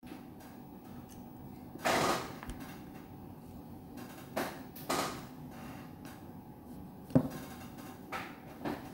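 Handling noise of the camera being gripped and moved: a few short scrapes and knocks, the loudest a sharp knock about seven seconds in.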